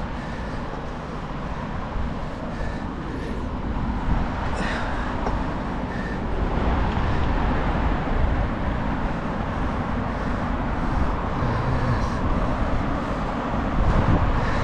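Road traffic: cars running past on a busy town road junction, a steady mix of engine and tyre noise.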